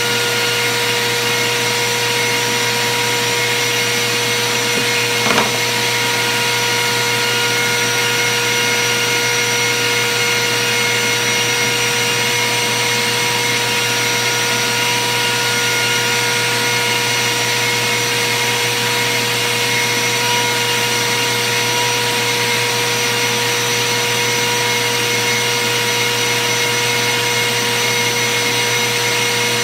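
An electric motor running steadily, a whine over a rush of air, from the router table's dust-collection vacuum or router. There is one short knock about five seconds in.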